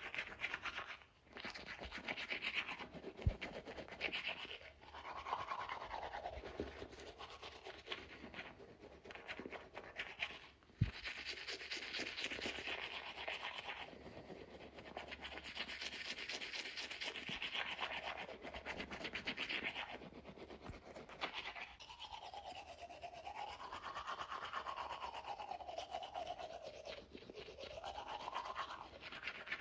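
Teeth being brushed with a toothbrush: bristles scrubbing rapidly against the teeth, with short breaks about a second in and about ten seconds in. Near the end the scrubbing sound slides up and down in pitch.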